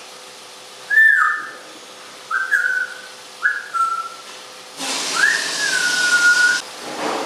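African grey parrot whistling: four clear notes, the first falling in pitch, the later ones rising then holding level, the last and longest lasting about two seconds. A burst of hiss sounds behind the last note.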